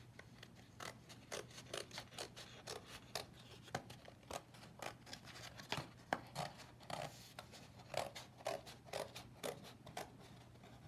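Small scissors cutting around a paper plate, a steady run of short snips, about two to three a second.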